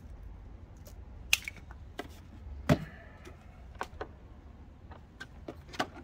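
Scattered clicks and knocks from handling a portable 12-volt fridge/freezer and its power cable, the loudest a thump a little under three seconds in, over a low steady rumble.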